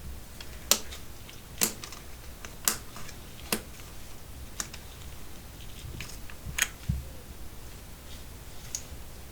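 Epomaker TH99 mechanical keyboard: single keys pressed one at a time, about one crisp click a second, with a dull low bump about seven seconds in.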